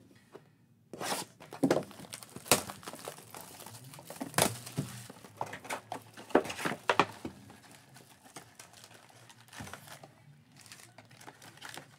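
Clear plastic shrink-wrap being torn and crinkled off a cardboard trading-card box, in irregular sharp crackles. The crackling is loudest and densest in the first half and thins out later on.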